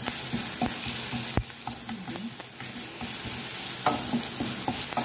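Minced garlic sizzling in hot oil with popped mustard and cumin seeds in a nonstick frying pan, the tempering for daal, stirred with a wooden spoon. There is a sharp knock about a second and a half in, and the spoon taps and scrapes in the pan near the end.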